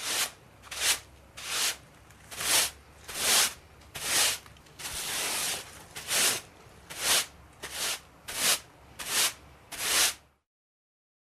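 A kitchen tool making repeated rasping strokes, about a dozen, each swelling and then stopping, with one longer stroke about five seconds in. It stops about ten seconds in.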